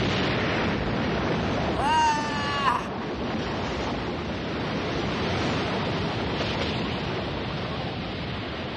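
Animated sound effect of an explosive blast of water: a steady rushing wash of surging water. A short rising pitched cry sounds about two seconds in.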